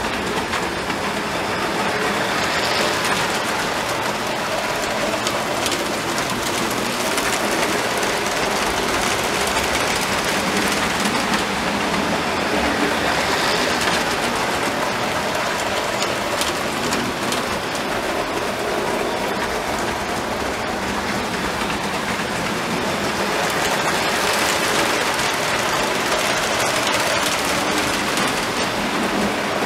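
Model train running past on the layout track: a steady rumbling whir from the locomotive's motor and the wheels of the passenger cars on the rails, with no let-up.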